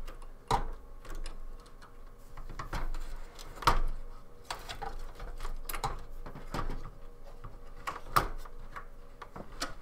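Irregular clicks, taps and knocks of a hard drive and metal parts being handled and fitted against the CPU inside an open steel desktop PC case.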